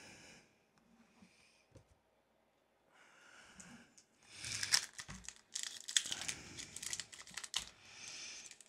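Foil Pokémon booster pack wrapper crinkling in the hands as it is handled and torn open, starting about four seconds in after a quiet stretch.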